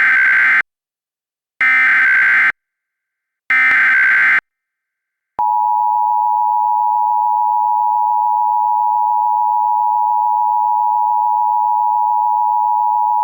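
Emergency Alert System header: three short bursts of SAME digital data tones, each under a second long and about two seconds apart. After a brief gap comes the steady two-tone EAS attention signal, held for about eight seconds.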